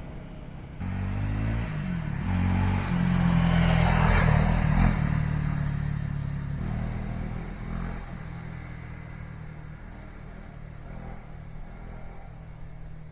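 Honda CRF 300L's single-cylinder four-stroke engine under way, revs climbing in steps early on and loudest about four seconds in, then easing off and running lower and quieter as the bike slows.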